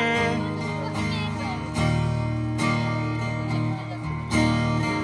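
Acoustic guitar strummed in steady chords through PA speakers, an instrumental passage between sung lines, with strong strokes about two, two and a half and four seconds in. A held sung note ends right at the start.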